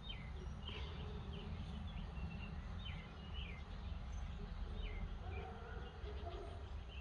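Wild birds chirping in the background: short, high, downward chirps about two a second, over a steady low hum of outdoor noise.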